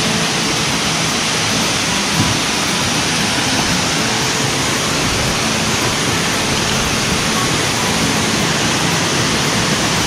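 Tall waterfall pouring down a rock face into a pool: a steady, even rush of falling water.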